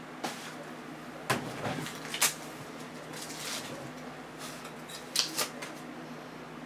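Trading cards being handled: scattered clicks, taps and rustling, with the sharpest click about two seconds in, a longer rustle a little later and two quick clicks near the five-second mark.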